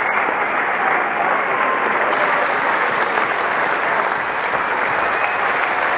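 Large cricket crowd applauding steadily in the stands, a dense wash of clapping.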